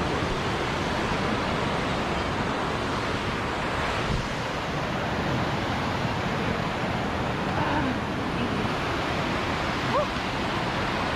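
Steady rushing of fast-flowing mountain water, an even roar without pauses.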